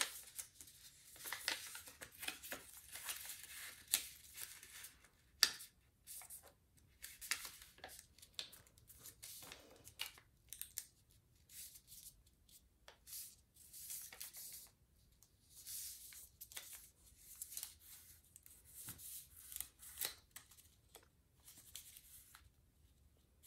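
Origami paper rustling and crinkling under the fingers as the partly folded model is folded corner to corner and its creases are pressed flat. It comes as an uneven string of short, crisp scrapes and crackles.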